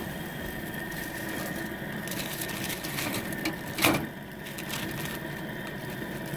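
Propane gas grill running with burgers and a pork chop steak sizzling over the flames, fat crackling steadily. One sharp pop a little before the four-second mark.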